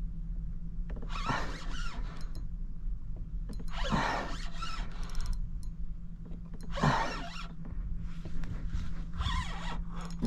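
Fishing reel drag buzzing in several short bursts as a hooked bull redfish pulls line off the reel.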